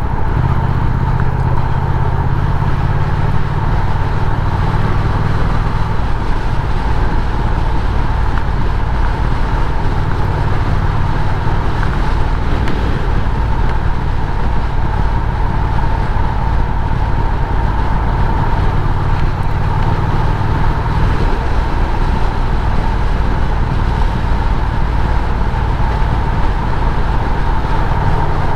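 Triumph Speed Twin's parallel-twin engine running steadily at road speed under wind and road noise, its note shifting about six seconds in and again around twenty seconds in.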